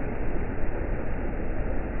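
River water rushing over boulders in a small rapid: a steady, unbroken rush of water.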